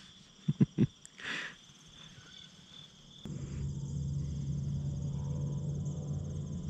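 Field insects trilling steadily outdoors, a fast high pulsing, with three short soft thuds about half a second in. About three seconds in, the background changes abruptly to a louder steady low noise with a hum under the trill.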